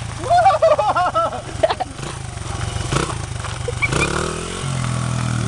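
Honda CRF100 dirt bike's small single-cylinder four-stroke engine running at low revs as the bike rolls, with the pitch rising about four seconds in as it is given a little gas.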